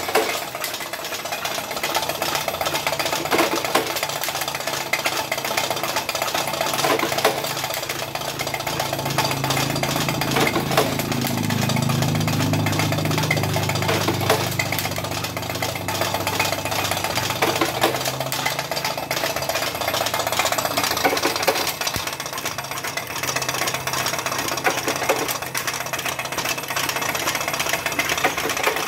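Homemade automatic cigarette-making machine with a revolving cylinder running at production speed: a steady, fast mechanical clatter of its moving parts as it fills and pushes out filter cigarettes. A low hum swells under the clatter for about ten seconds in the middle.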